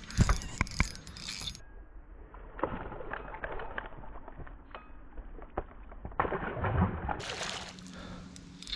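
Scattered knocks and clicks of gear being handled in a small fishing boat, loudest as a few sharp knocks in the first second.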